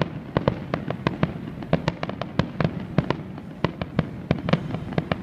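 Aerial fireworks bursting in a rapid, irregular string of sharp pops and bangs, about four a second.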